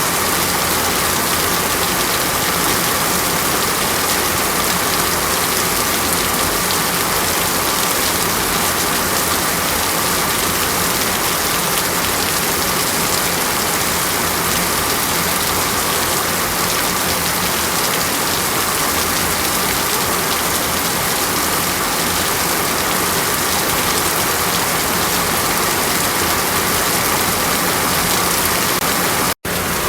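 Steady rain falling on a surface, a continuous even hiss of water. It cuts out for an instant near the end.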